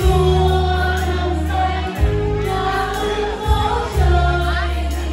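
Music: a choir of voices singing over held bass notes that change about every two seconds.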